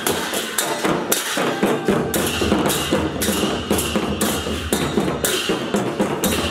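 Large brass hand cymbals clashing in a steady rhythm, about two ringing clashes a second, over a low drum beat.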